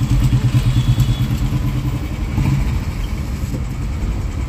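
Motorcycle engine running close by, its low hum strongest for the first two and a half seconds and then easing into a steady low traffic rumble.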